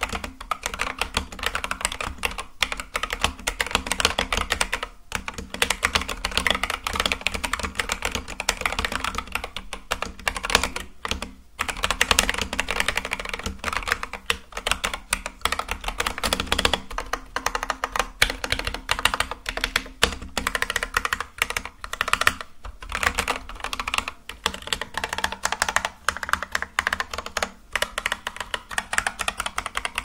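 Fast, continuous typing on a Keychron K8 mechanical keyboard with factory-lubed Akko Jelly Black linear switches and XDA-profile Sea Salt keycaps: a dense run of keystroke clicks broken by a few brief pauses.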